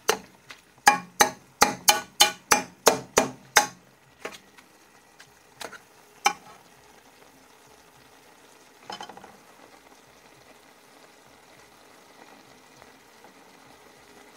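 Metal spoon stirring chicken mince in a metal pan: a quick run of sharp clinks and scrapes against the pan, about four a second, for the first four seconds, then a few scattered knocks. After that only a faint steady sizzle from the pan is left.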